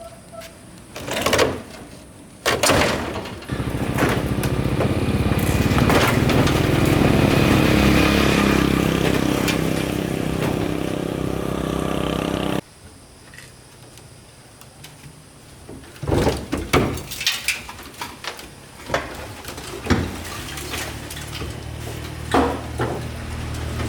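A couple of knocks, then a motor runs steadily for about nine seconds and cuts off abruptly, followed by scattered metallic knocks and clatter.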